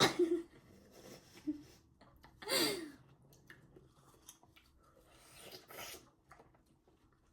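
Faint chewing and breathing from children eating watermelon. A short breathy voiced sound falls in pitch about two and a half seconds in, and there is a soft rustle near six seconds.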